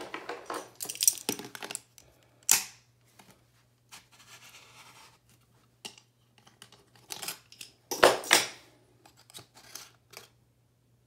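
Scattered clicks, knocks and scrapes of a metal pipe-primer can and its lid being handled in a plastic bucket, the sharpest about two and a half seconds in and again about eight seconds in, over a faint steady low hum.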